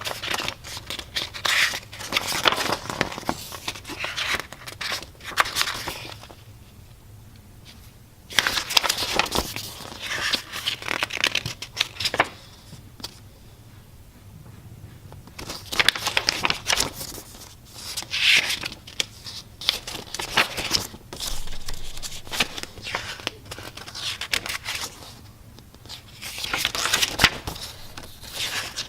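Paper and packaging being handled: pages of a small booklet flipped, with rustling, crinkling and the odd tear in irregular spells and two short lulls.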